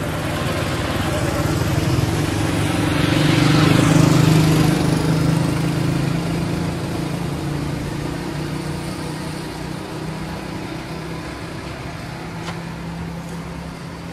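A motor vehicle's engine passing by, its hum swelling to a peak about four seconds in and then slowly fading.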